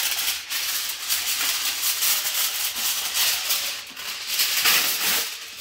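Sheet of aluminium foil crinkling and rustling as it is pulled off the roll and handled, with many small crackles.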